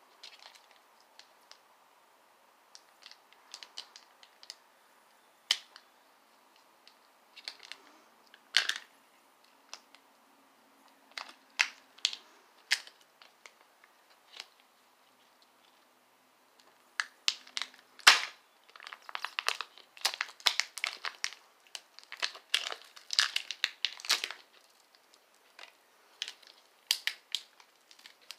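Hands squeezing and working a plastic toy shell: irregular clicks, creaks and crinkling, sparse at first and much busier in the second half.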